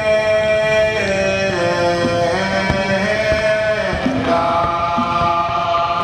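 A chant-like song with long held sung notes that shift in pitch about once a second, with a few faint fireworks bangs underneath.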